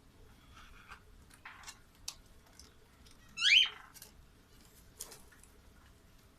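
A single short, high squeak that falls in pitch, about halfway through, among soft rustling and light clicks.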